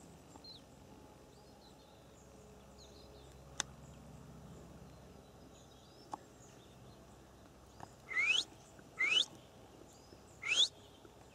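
Faint bird chirps over quiet outdoor background, with a couple of single clicks. In the last few seconds come three loud, short rising whistled calls, each under half a second and about a second apart.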